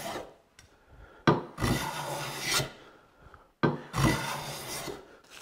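Metal bench plane taking shavings along the edge of a hardwood board: two full strokes, each starting sharply and lasting about a second and a half, with the end of an earlier stroke just at the start.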